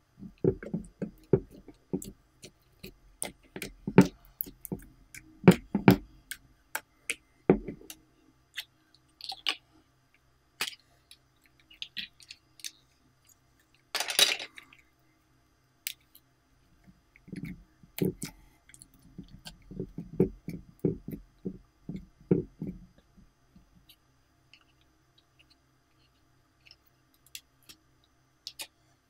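Soft glitter slime being squeezed and pressed by hand in a glass dish: irregular wet clicks, pops and squelches, with one louder hissing squelch about halfway through. The sounds thin out to a few light clicks near the end.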